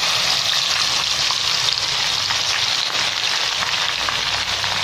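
Whole masala-coated stuffed chicken frying in hot oil: a loud, steady sizzle with dense crackling.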